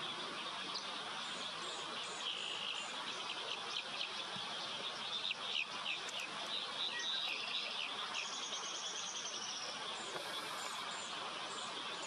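Wetland ambience: several birds calling with quick high chirps and short repeated notes over a steady hiss, with a brief high buzzing trill about eight seconds in.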